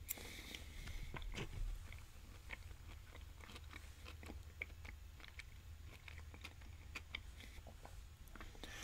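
A man chewing a mouthful of a Chipotle beef power bowl close to the microphone: faint, irregular mouth clicks.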